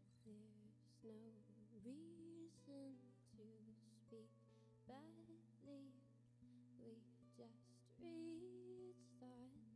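A woman singing live, her voice sliding through short melodic runs, over acoustic guitar accompaniment.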